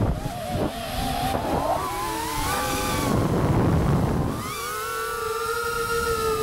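FPV quadcopter's brushless motors and propellers whining, the pitch swooping and wobbling with the throttle through a flip, a louder rush of air noise about three to four seconds in, then settling into a steady whine.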